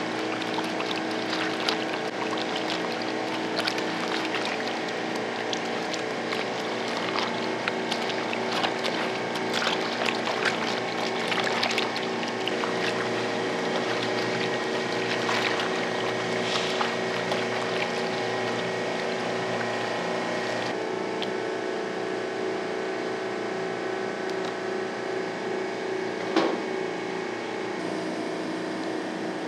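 Water splashing and sloshing as shark skin is scrubbed by hand in a tray of soapy water, over a steady mechanical hum; the splashing is busiest in the first two-thirds, and a single louder knock comes near the end.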